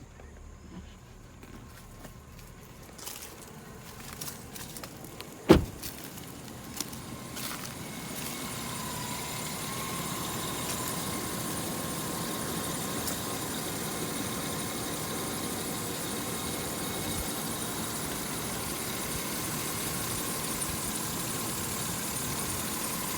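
5.3 L Vortec V8 engine idling steadily, getting louder over the first several seconds and then holding even. A single loud thump about five and a half seconds in.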